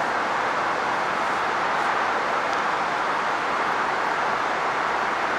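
Steady rolling noise of trains moving through the station, wheels on rails, holding an even level.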